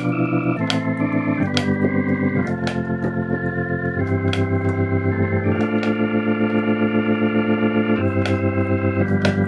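Yamaha Montage M synthesizer's "Preacher" organ patch played as a run of held chords, changing every second or so, with a short key click at each new chord and a fast wavering in volume.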